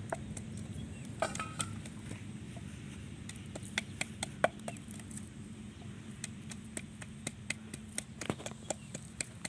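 Wooden pestle pounding in a clay mortar, grinding chilies and garlic for a paste: irregular sharp knocks, a few a second.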